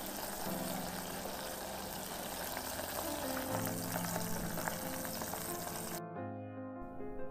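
Battered pieces deep-frying in a pot of hot oil: a steady sizzle with small crackles, under background music. The sizzle cuts off about six seconds in, leaving only the music.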